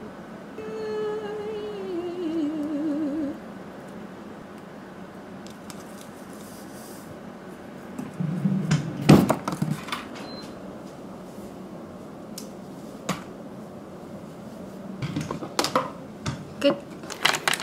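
A woman's voice humming a falling, wavering note for about three seconds near the start. Then scattered clicks and knocks of small objects being handled, the loudest a cluster about nine seconds in and a quicker run near the end.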